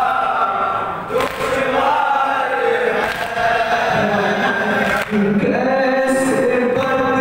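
A group of men chanting an Urdu noha, a mourning lament, together and without instruments, led by a reciter on a microphone. Faint strikes of chest-beating (matam) fall about every two seconds.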